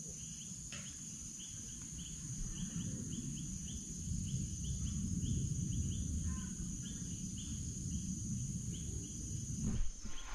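Woodland insects: a steady high-pitched drone with a short chirp repeating about three to four times a second over it. A low rumbling noise runs underneath.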